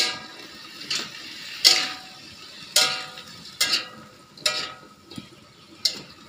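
A metal cooking utensil stirring long beans in a metal wok, knocking against the pan about once a second, each clank ringing briefly.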